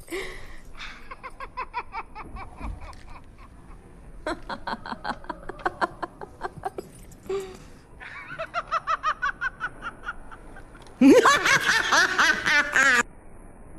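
Laughter in several bouts of rapid, evenly spaced ha-ha pulses, with a much louder, higher stretch about eleven seconds in that lasts about two seconds.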